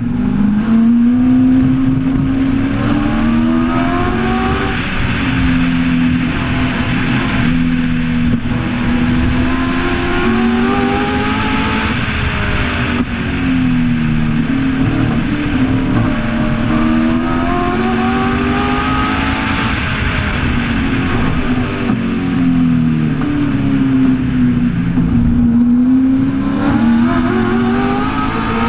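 Shelby Cobra's Ford V8 at racing speed, heard from the open cockpit: the engine note climbs hard under acceleration, drops back at each upshift or lift for a corner, then climbs again, over steady wind rush.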